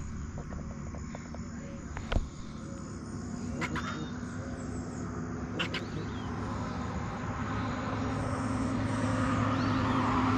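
A motor droning steadily, its hum growing louder over the last few seconds as it comes closer, with a sharp click about two seconds in.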